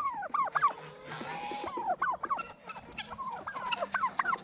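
A flock of turkeys calling: a quick run of short yelps and clucks, each falling in pitch, several a second.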